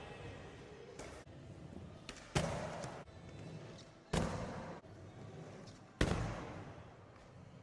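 Skateboard wheels rolling on plywood ramps, with a soft knock and then three loud, sharp clacks of the board hitting and landing on the wood, each ringing out in a large echoing hall.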